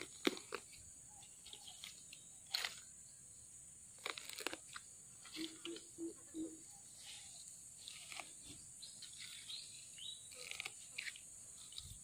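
Faint outdoor ambience: a steady high-pitched hiss with a few bird chirps and calls, and several short crunches and clicks of dry sticks and leaf litter being handled in the first few seconds.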